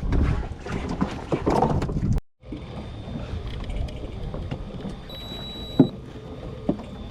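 Fishing boat at sea: steady engine and wind noise that cuts out abruptly about two seconds in, then carries on quieter. A short high beep and a sharp knock come a little before the end.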